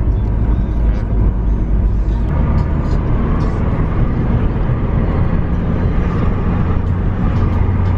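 Car on the move: a steady, loud, low road and engine rumble, shifting slightly about two seconds in.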